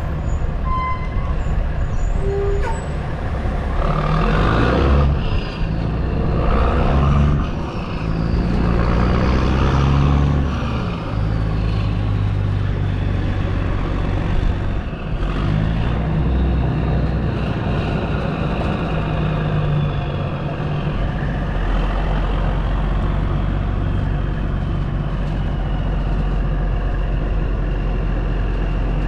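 Kenworth T800 semi's straight-piped Caterpillar C15 diesel pulling the lowboy, surging several times as it accelerates through the gears in the first ten seconds or so, then running steadily. A faint high whine rises and falls above the engine.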